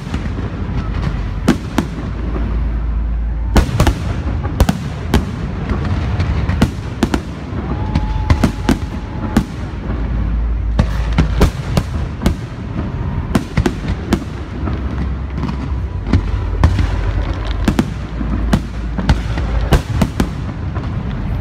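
Aerial fireworks shells bursting overhead in rapid succession: many sharp reports over a continuous low rumble. The reports come thickest about four seconds in, again around the middle, and near the end.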